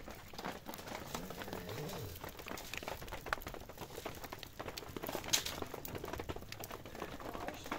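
Small wood fire crackling with irregular pops and snaps, and sticks being pushed and shifted in the embers.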